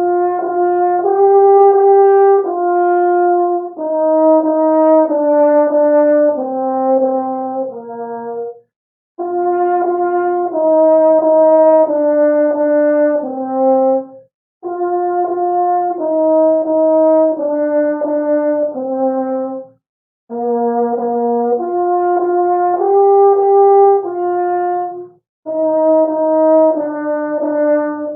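French horn playing a melody of held notes in phrases of about five seconds, with short pauses between them.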